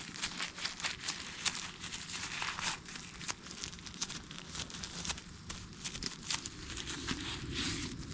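Crinkling of packaging being handled: a dense, irregular run of small sharp crackles.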